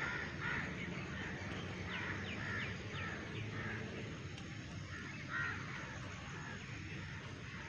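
Birds calling: repeated short calls, with a run of quick falling chirps about two to three and a half seconds in and another loud call a little past five seconds, over a steady low background hum.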